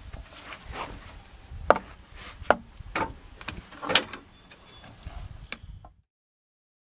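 Scattered sharp clicks and knocks of a hand grease gun being handled and worked onto the snowmobile's grease fittings, with rubbing and shifting on a wooden pallet. The sound cuts off about six seconds in.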